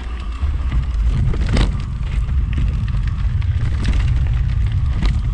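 Mountain bike riding down a dirt forest trail: a steady low rumble of tyres on the dirt and wind buffeting the camera's microphone, with about three sharp rattles of the bike over bumps.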